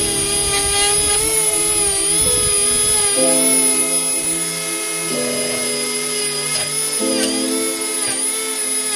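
High-speed handheld rotary tool with a small abrasive polishing wheel grinding and polishing a steel scissor handle, giving a steady high whine whose pitch wavers and dips briefly twice near the end as the wheel is pressed onto the metal. Background music plays underneath.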